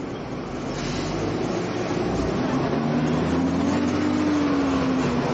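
Engine of a double-decker bus pulling past close alongside, building up from about a second in, its pitch rising a little and then easing off, over steady street traffic noise.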